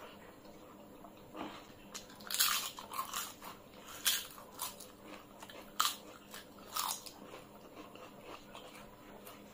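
Crunching bites into a crisp fried papad, several sharp crunches with softer chewing between.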